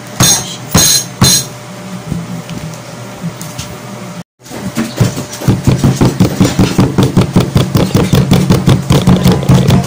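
A drinking glass knocking on Cremeo chocolate sandwich cookies in a plastic bag on a table, crushing them fine. Three sharp knocks come in the first second and a half. After a brief dropout the pounding runs fast and even, about four strokes a second, over a steady low hum.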